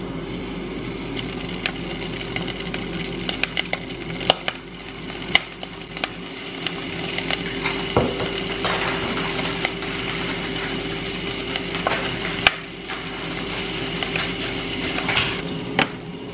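Tartar sauce and minced garlic sizzling in a hot frying pan, with a steady low hum underneath and a few sharp knocks of a utensil against the pan.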